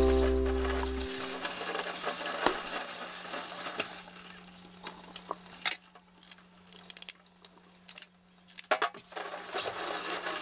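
Tap water running into a stainless steel sink over a piece of mackerel as it is rinsed by hand. The flow thins out about four seconds in, with a few light clicks and knocks during a near-quiet stretch, and picks up again near the end. A held musical chord dies away in the first second or so.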